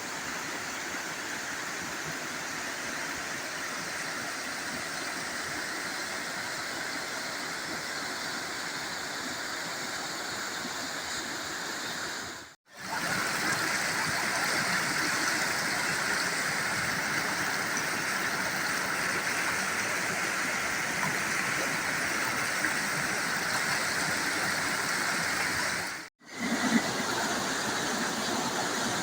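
Waterfall: a steady rush of falling water, breaking off abruptly for a moment twice, about 12 s and 26 s in, and a little louder after the first break. A short bump comes just after the second break.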